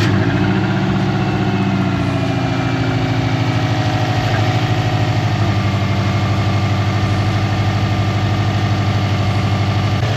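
Subaru WRX turbocharged 2.0-litre flat-four idling just after a cold start, its idle easing down slightly in the first few seconds and then running steadily. It runs on a newly fitted Fluidampr crankshaft damper with no belt squeal.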